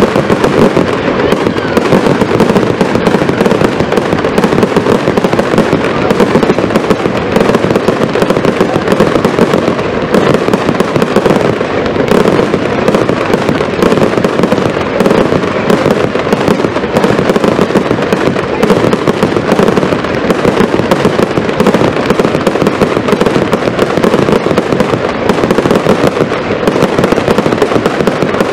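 Zena fireworks firing in a dense, unbroken barrage: many bangs and crackling bursts overlap into a continuous din with no pauses.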